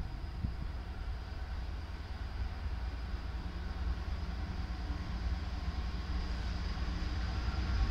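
Diesel freight locomotive approaching slowly, its engine a steady low drone that grows gradually louder.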